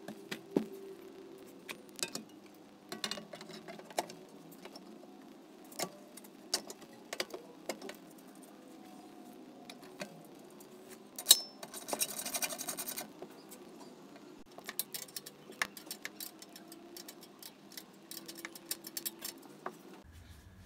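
Bolts, spring washers and the Scott Bonnar Model 38 edger's blade cowl clicking and clinking as the cowl is bolted on by hand: scattered light knocks and taps, with one sharp clack about eleven seconds in followed by a second or so of rapid clicking.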